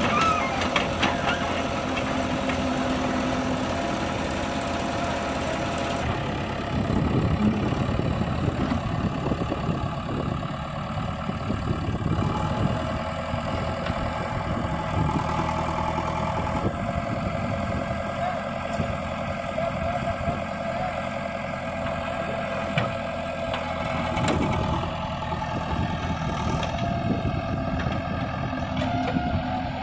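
Diesel engine of a JCB backhoe loader running steadily as the backhoe arm works, with a steady high whine over it through much of the second half.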